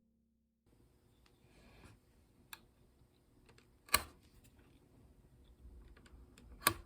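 Faint small handling sounds of hand work at a bench, with a few sharp clicks or taps scattered through, two of them louder: one near the middle and one near the end.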